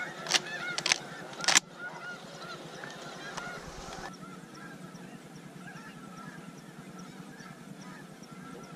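A flock of snow geese calling, many high honks overlapping. Three sharp bangs come in the first second and a half, then the honking goes on more faintly.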